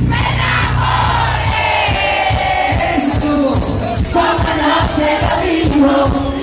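Live cuarteto band playing loud, with a crowd singing and shouting along. Held low notes give way about one and a half seconds in to a quick, steady drum beat.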